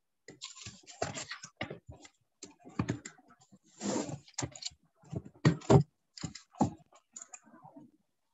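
Paper textbook being handled and a page turned close to the microphone: scattered taps and rustles, with a longer paper swish about four seconds in as the page goes over.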